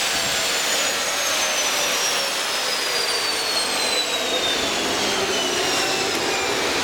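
Homemade turbocharger-based gas-turbine jet engine running with a loud, steady rush. Its high turbine whine falls steadily in pitch as the rotor slows.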